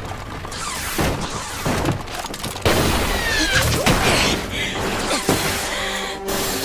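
Animated battle sound effects: a dense run of sharp shots and impacts, with music coming in as steady held notes near the end.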